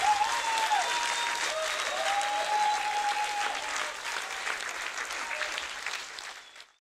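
Audience applauding. The clapping fades out near the end.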